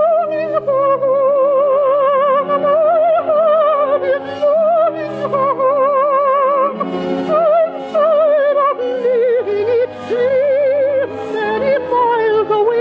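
Soprano singing a slow, sustained melody in operatic style with a wide vibrato, over an orchestral accompaniment.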